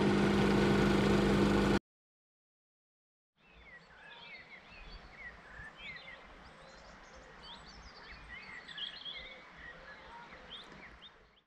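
An espresso machine's pump hums steadily as coffee pours into two cups, then cuts off suddenly just under two seconds in. After a short silence, birds sing and chirp over a faint low rumble.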